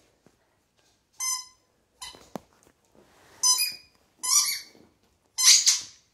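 Small rubber squeaky ball squeezed in a miniature dachshund puppy's jaws, giving five short squeaks at irregular gaps, the last the loudest, with one sharp click between the second and third.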